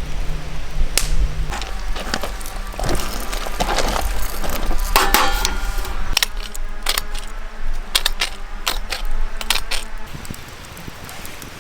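A string of irregular metal clinks and knocks from camp cookware being handled, one clink ringing briefly about five seconds in, over a steady low rumble.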